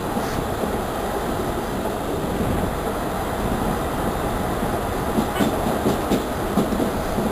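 Vitória–Minas Railway (EFVM) passenger train running at speed, heard from beside its car: a steady rumble of wheels on rail. From about five seconds in come several sharper knocks.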